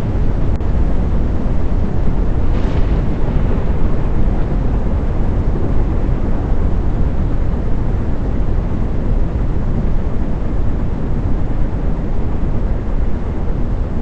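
A loud, steady low roar of wind and rumble, with a brief hiss about two and a half seconds in.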